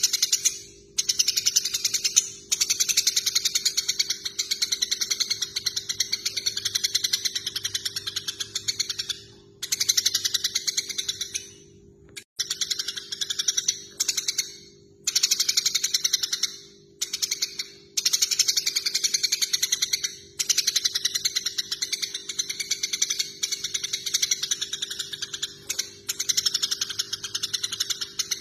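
Eurasian tree sparrows chattering in fast, dense runs of chirps lasting a few seconds each with brief breaks between, the excited chatter of sparrows fighting. A faint steady hum lies underneath.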